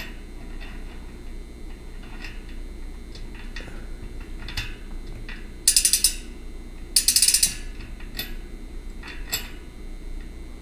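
Bicycle rear hub freehub ratcheting as a 12-speed cassette is turned by hand, in two short bursts of rapid clicking a little past the middle. Scattered light metal clicks come from the small steel cogs being worked onto the splines.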